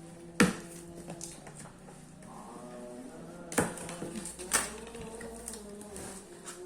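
Three sharp clicks or knocks, about half a second in and twice more in the middle, over a faint background of held pitched tones.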